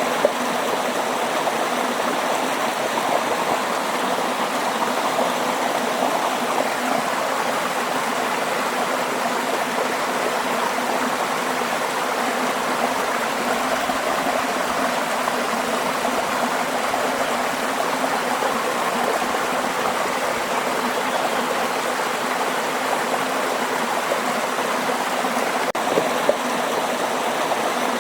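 Waterfall: steady rushing and splashing of falling water.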